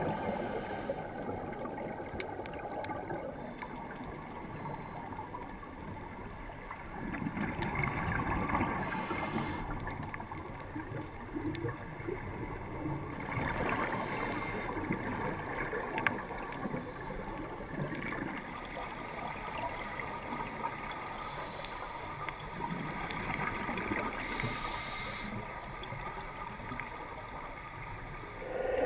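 Muffled underwater rushing and gurgling picked up by a GoPro in its dive housing, swelling every few seconds with a scuba diver's exhaled regulator bubbles.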